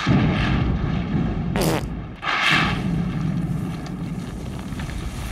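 A sudden, long, loud rumble like rolling thunder, starting at once and running on, with two sharper bursts about a second and a half and two and a half seconds in.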